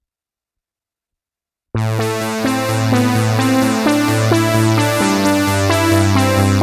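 Roland System-8 synthesizer playing one of its Jupiter-8 plug-out presets. It starts abruptly after about a second and a half of silence, with a rhythmic pattern of quick, bright notes over a low bass line.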